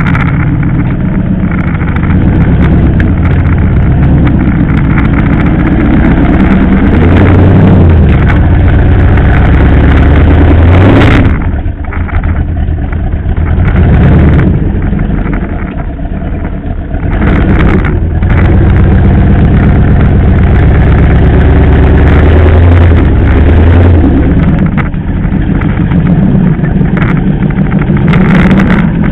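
Mercedes G-wagen off-roader driving slowly over rough ground, heard from under the chassis: a loud, continuous engine hum with the drivetrain working. A sharp knock comes about eleven seconds in, then the engine eases off for a few seconds before pulling again.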